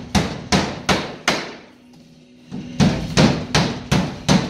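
Hammer driving drywall nails, sharp ringing blows about three a second: four strikes, a pause, then five more.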